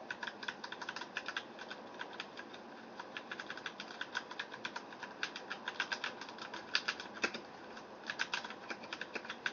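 Fast typing on a Filco mechanical keyboard with Cherry MX Brown switches, keys pressed lightly without bottoming out: a quiet, rapid, uneven patter of key clicks.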